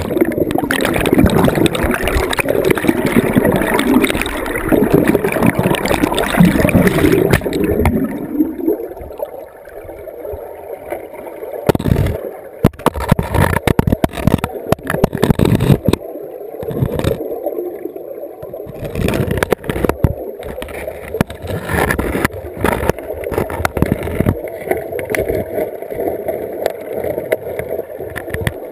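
River water heard through a GoPro's underwater housing: a muffled rushing and gurgling, loud for the first eight seconds or so, then quieter. Scattered knocks follow, as the camera housing bumps against riverbed stones.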